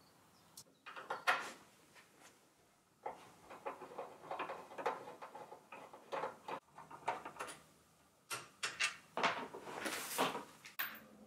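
Irregular clicks, knocks and scrapes of hands and a screwdriver working on a Revox B77 reel-to-reel tape recorder's housing as it is opened up, coming in short clusters with pauses between.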